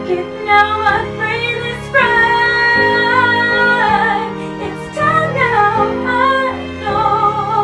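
Music with a woman singing over an accompaniment, holding one long note for about two seconds from roughly two seconds in.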